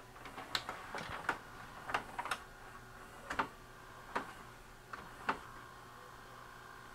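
Magnavox ZV427MG9A DVD/VCR combo's VCR transport loading a cassette and threading the tape: about ten irregular mechanical clicks and clacks over roughly five seconds, then a steady faint whine as the mechanism runs.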